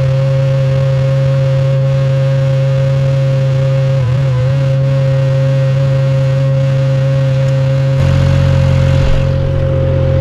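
Ventrac 4520 compact tractor running steadily, its engine hum joined by a steady whine. About eight seconds in, the engine sound grows louder and deeper.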